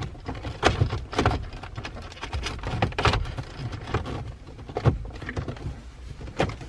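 Hands working on a car's shift console, snapping the plastic shift boot trim back into place: scattered, irregular plastic clicks and knocks, the loudest about five seconds in.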